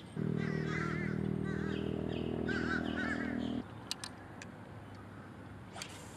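A steady low hum that cuts off suddenly about three and a half seconds in, with repeated short chirping bird calls over it; a few sharp clicks follow.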